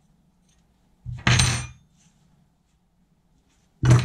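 Two dull metal clunks, one about a second in and one near the end, from steel tools being handled while an adjustable reamer's blades are set with spanners, half a turn at a time.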